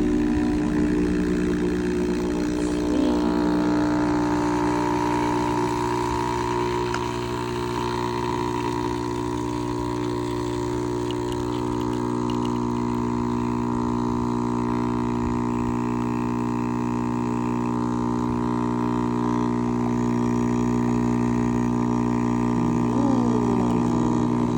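Capsule coffee machine's pump humming steadily while it pushes hot water through a KitKat hot-chocolate capsule, dispensing the drink into the cup.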